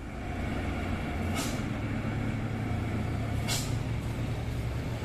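Hino dump truck diesel engines running with a steady low rumble, and two short air-brake hisses, about a second and a half and three and a half seconds in.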